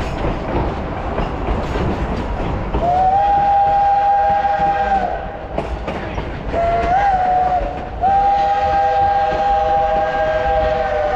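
Durango & Silverton steam locomotive's whistle blowing three blasts over a rumbling train: a long one, a short one that wavers up in pitch, and a long one that runs on.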